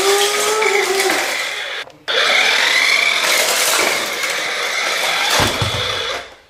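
Small electric motor of a remote-control toy car whining while it drives over a tile floor, with wheel noise. It cuts out for a moment about two seconds in, runs again, and dies away near the end after a low thump.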